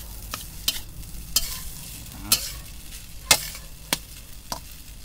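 Fried rice being stir-fried in a thick iron wok: a cooking utensil scrapes and knocks against the pan at irregular intervals over a soft frying hiss.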